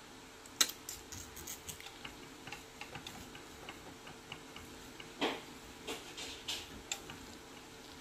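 Irregular small clicks and taps of a steak knife and fork on a plate as a pork rib chop is cut, with a couple of sharper clicks about half a second in and about five seconds in. A faint steady hum runs underneath.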